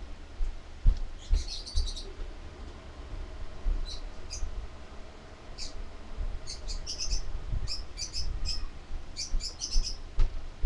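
Small birds chirping in quick runs of short, high notes, with low thuds underneath.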